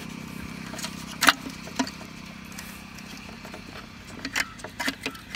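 Small metal-and-plastic clicks and rattles as a motorcycle headlamp bulb's locking ring is twisted back into place in the reflector housing: one sharp click about a second in and a run of lighter clicks near the end, over a steady low hum.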